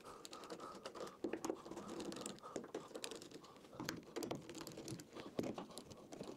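Hand screwdriver backing out the screws that hold an MDF spoilboard down on a CNC router's aluminium extrusion: quiet, irregular clicks and small scrapes of metal on metal and wood.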